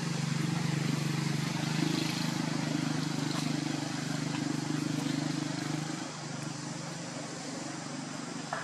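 A steady low hum of an engine running, which drops off about six seconds in. A brief high squeak comes near the end.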